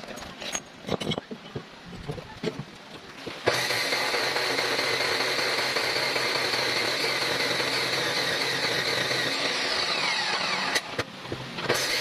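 A few scattered knocks and clicks. Then, about a third of the way in, an abrasive chop saw starts cutting through a steel bar with a loud, steady grinding whine. It breaks off briefly just before the end and then resumes.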